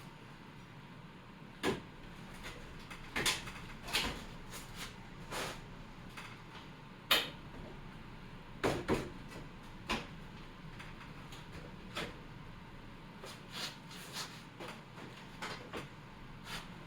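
Irregular knocks, clicks and creaks of wood as a nailed-together wooden box is pulled apart, about fifteen separate strikes spread out, the sharpest about seven seconds in.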